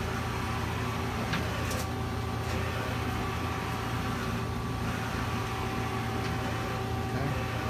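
2007 Mazak Nexus QTN 250MSY CNC turning center running: a steady machine hum with a steady whine over it, holding an even level, with a few faint ticks.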